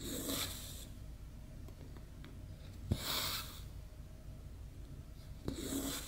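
Cross-stitch floss drawn through 14-count Aida canvas, three stitches about three seconds apart: each a sharp tick of the needle through the fabric, then a short hissing swish as the thread is pulled taut.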